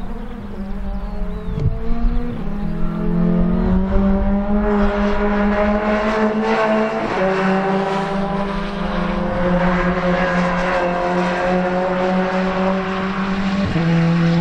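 BTCC Vauxhall Astra touring car's turbocharged 2-litre four-cylinder engine accelerating hard through the gears. The pitch climbs in each gear and drops sharply at each of several upshifts. It gets louder about five seconds in as the car comes nearer.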